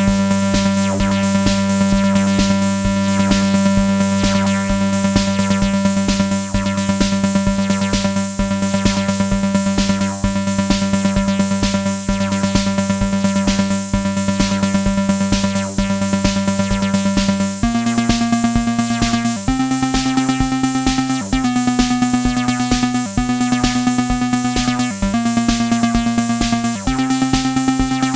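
Erica Synths Bassline analog bass synthesizer playing a sequenced pattern over a fast, even electronic pulse. It holds one low note for most of the time, then about two-thirds of the way in starts stepping between notes every second or two.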